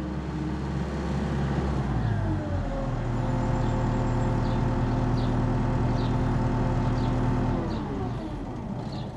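Diesel engine of a Caterpillar M315C wheeled excavator running. Its speed shifts up about two seconds in, holds steady, then winds down near the end, with the sound fading.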